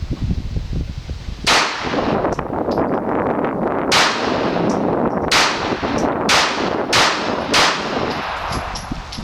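SIG .380 pistol firing six shots of jacketed hollow-point ammunition, one about a second and a half in, then five more coming faster and faster, each with a short echo. The rounds feed and cycle without a stoppage.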